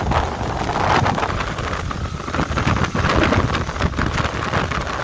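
Heavy wind buffeting the microphone of a motorcycle at speed, with the Yamaha R15 V4's 155 cc single-cylinder engine running underneath.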